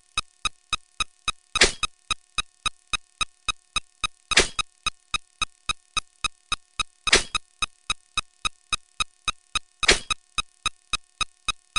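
Sped-up sound effects from a counting video, played back as a fast, even string of short electronic blips, about four a second. A longer, louder burst comes about every three seconds, three times in all.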